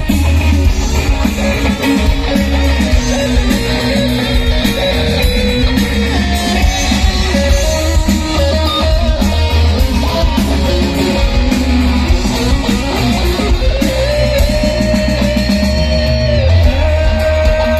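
Live rock band playing loud through a PA system: electric guitars over heavy bass and drums, with a sustained lead melody line near the end.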